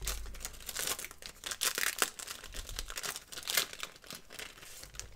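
Flimsy wrapper of a 1990/91 Pro Set football card pack crinkling and tearing as it is pulled open by hand, a rapid string of crackles that dies away near the end.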